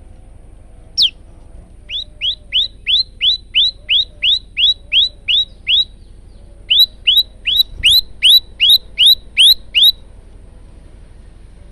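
Male prenjak lumut singing: one sharp note, then two runs of short, ringing notes repeated about three times a second, the second run louder.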